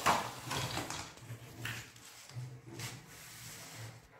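Plumbing fitting being handled and worked by hand: a sharp click at the start, then faint intermittent scrapes and a few soft knocks.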